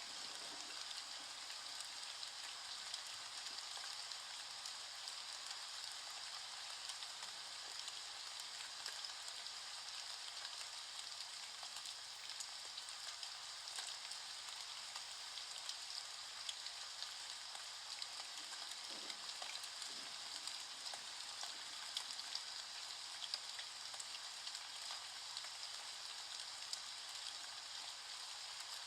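Rain falling: a steady patter of many small drops.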